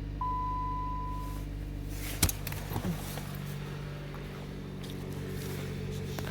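2013 Dodge Avenger's 2.4-litre four-cylinder engine idling steadily after a cold start. A short steady beep sounds near the start, and there is a sharp click a little over two seconds in.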